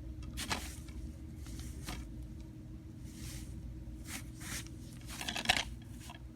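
A handful of short rustling, scraping noises over a steady low hum, the loudest near the end.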